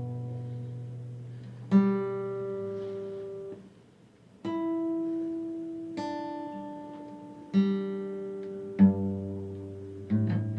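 Slow acoustic guitar playing: plucked notes and chords left to ring out and fade, a new one every second or two, with a brief pause about four seconds in.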